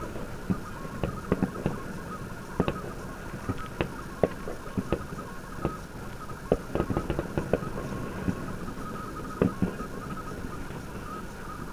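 Distant fireworks going off: irregular sharp bangs and crackling pops, sometimes several close together, over a steady background noise.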